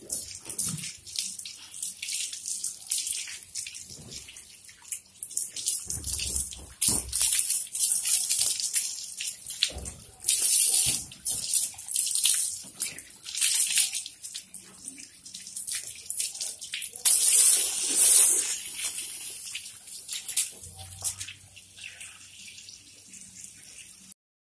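Water from a garden hose spraying and splashing onto a dog's wet coat and the tiled floor, the hiss swelling and fading unevenly as the spray moves. It cuts off suddenly near the end.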